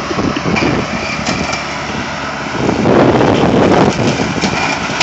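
Kubota riding lawn mower running under load as its deck grinds into a bush: a dense, noisy machine sound that gets louder about two and a half seconds in, with a few scattered cracks.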